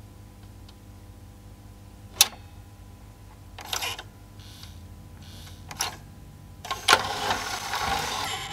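CD player tray loading mechanism working: a sharp plastic click about two seconds in, short whirs of the loading motor and belt, then a longer whir that starts with a click near the end.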